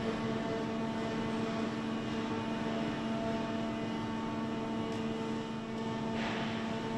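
Steady hum of factory machinery, several fixed tones over a low noise. A short hiss comes about six seconds in.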